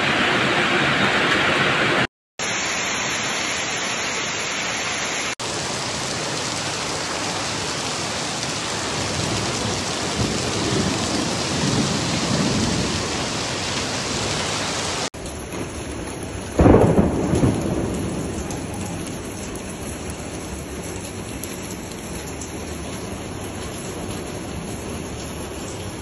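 Heavy rain pouring down in a thunderstorm. About two-thirds of the way through, a sudden clap of thunder rumbles and fades over a second or two.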